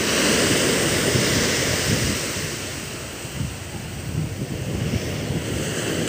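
Sea surf breaking and washing up a sandy beach in a rough sea ahead of a storm. The wash is louder for the first couple of seconds, eases about halfway through, then builds a little again.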